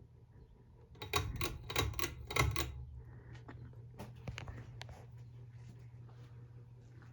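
Hampton Bay Carousel 52-inch ceiling fan, made by CEI, with its motor humming steadily. A quick run of about six rattling clicks comes from about one to three seconds in, followed by a few fainter ticks.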